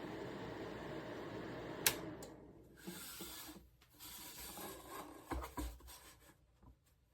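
Small ceramic fan heater blowing steadily, then a sharp click about two seconds in and the fan noise dies away. Rubbing and handling noises follow, with a couple of soft thumps.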